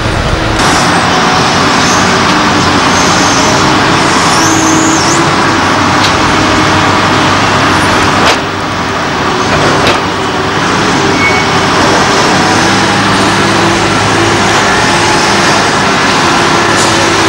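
Heavy diesel construction machinery running with a steady engine drone. There is a click and a brief dip in loudness about eight seconds in.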